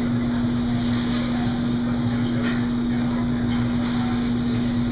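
Steady machine hum: one constant low tone over an even low rumble, with no change in pitch or level.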